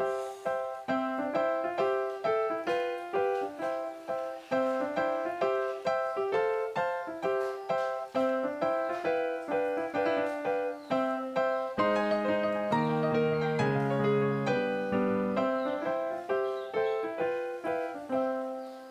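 Background piano music: a continuous run of single struck notes, with lower notes joining in about two-thirds of the way through.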